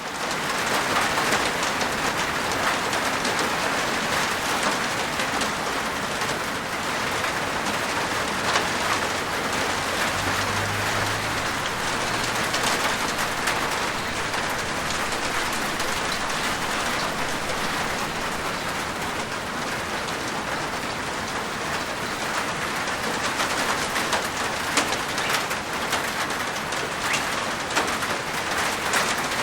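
Steady rain falling on a rooftop: a dense, even patter of many small drops.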